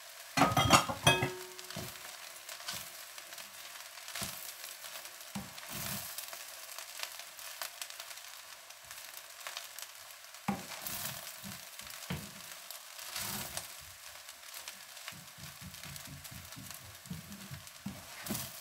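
Fried rice sizzling in a frying pan while a spatula stirs and scrapes it through, with a few louder knocks of the spatula in the first second or so.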